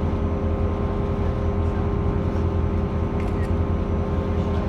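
Cruise boat's engine running steadily: an even low hum with a few steady higher tones over it.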